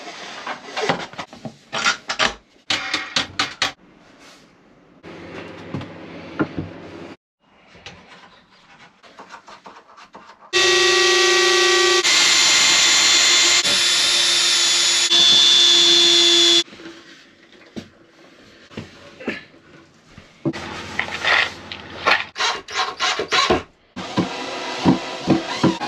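A cordless drill running steadily for about six seconds, starting about ten seconds in, as it bores into a wooden worktop. Before and after it, short knocks, taps and clatter of hand work on wood.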